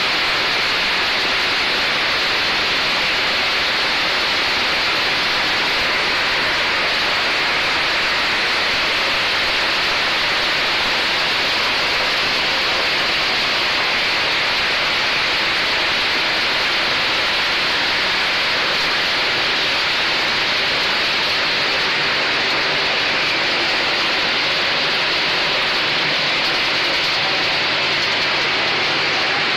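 PET bottle label remover machine running wet, with water spraying and pouring down its housing: a loud, steady rushing noise.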